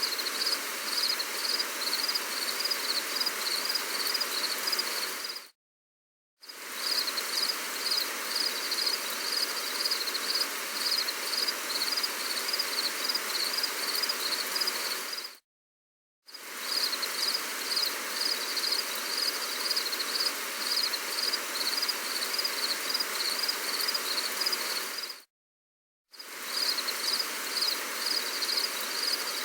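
Gentle rain hiss with insects chirping in a steady, high-pitched pulse. The sound cuts out to silence for about a second three times, roughly every ten seconds, and fades back in each time, as a short recording looped.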